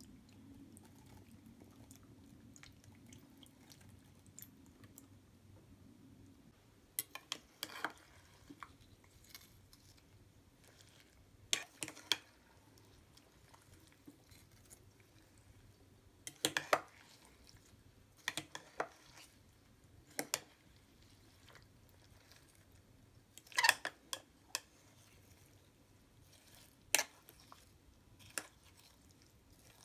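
A metal fork stirring a creamy fruit salad in a glass bowl: scattered clinks and scrapes of the fork against the glass with soft squishes of the fruit, starting several seconds in and coming every few seconds.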